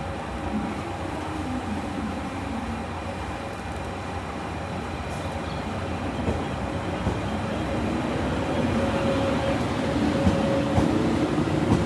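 JR West 381 series limited express electric train rolling slowly along the platform, with a steady rumble of wheels and running gear that grows a little louder as the cars pass close by.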